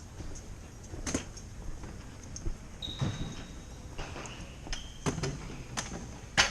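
Scattered knocks, clicks and clanks of hand work on metal parts, with a brief high squeak about three seconds in and a shorter one near five seconds.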